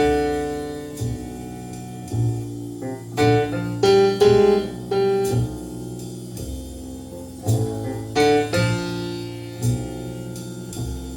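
Recorded jazz from a piano trio: an acoustic piano plays slow, separate notes and chords that ring out and fade, over a low bass line.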